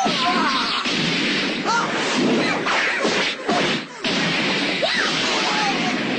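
Animated fight sound effects: a rapid string of hits, whooshes and crashes over a continuous noisy din, with a few short sliding tones. The din drops briefly a little before four seconds in, then resumes.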